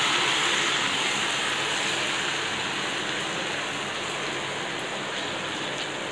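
Hot oil in a kadai sizzling hard as rice-flour omapodi dough is pressed into it in strands from an idiyappam press. The sizzle eases slightly toward the end.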